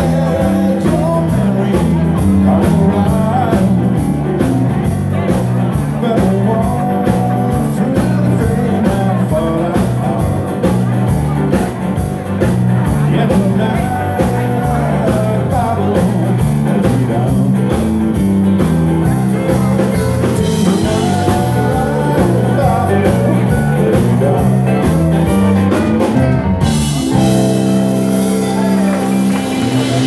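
Live band playing upbeat rock-and-roll dance music with a singer, a steady beat and a bass line that steps from note to note. Near the end the song breaks off abruptly and long held notes follow.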